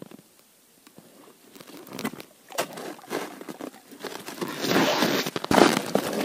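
Handling noises: a few soft clicks and rustles of stiff winter clothing and a plastic bottle, building to a louder, denser rustle about four and a half seconds in as the bottle is lifted.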